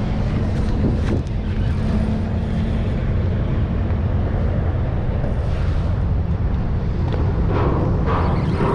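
Boat motor running steadily with a low rumble.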